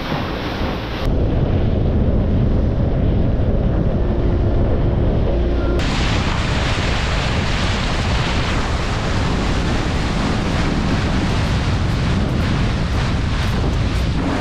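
Wind buffeting the microphone over the rush of water and wake from a boat running at speed, a loud deep rumble. The sound changes abruptly about a second in, turning dull and boomy, and opens up again into a brighter rush near six seconds in.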